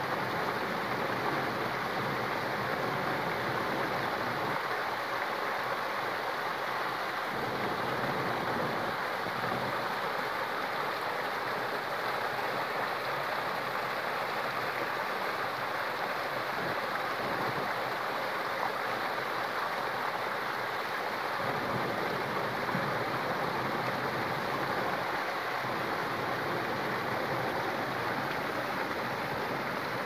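Water from a small man-made rock waterfall falling over ledges and splashing into a shallow pool, a steady rushing that does not change.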